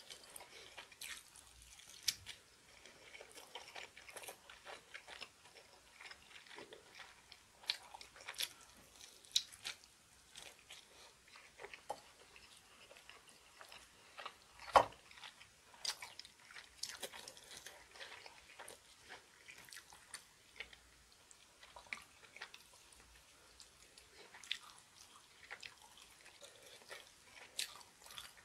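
A person chewing and biting crunchy young-radish kimchi (chonggak kimchi), with irregular crisp crunches and wet chewing. The loudest crunch comes about halfway through.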